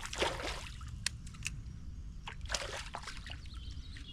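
Water splashing and trickling in several short bursts, the biggest at the start and another about two and a half seconds in, over a steady low rumble.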